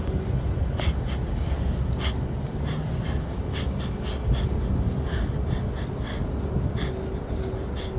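A person breathing heavily and raggedly close to the microphone, with many short catching breaths and sniffs, as a sneeze builds.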